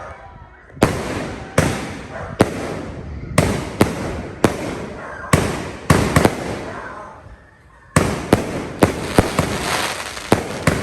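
Dragon Fireworks 'Dragon's Windwalker' 16-shot cake firing. Sharp bangs come in uneven succession, each trailing off in a fading hiss. There is a brief lull about two-thirds of the way through, then a quick cluster of shots.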